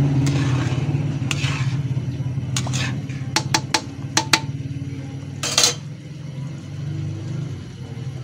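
Cream sauce simmering in an aluminium pan over a gas burner, with a steady low rumble throughout. A metal spatula clicks against the pan about seven times around the middle, and scrapes once shortly after.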